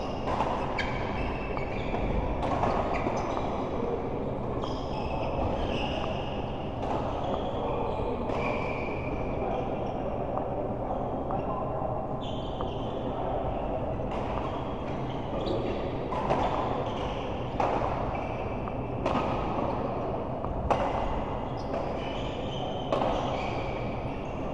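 Indoor badminton doubles: sharp racket strikes on the shuttlecock about once a second, over a steady hall din with players' voices in the background.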